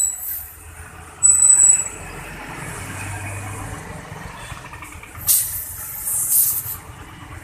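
Compressed air hissing in short bursts from an air hose's chuck pressed onto the valve of a tyre on a steel wheel as it is inflated: one burst about a second in and a longer one about five seconds in. A steady low rumble runs underneath.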